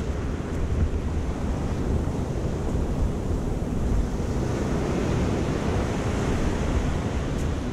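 Sea surf washing and breaking on the beach as a steady rushing noise, with wind buffeting the microphone as a low rumble.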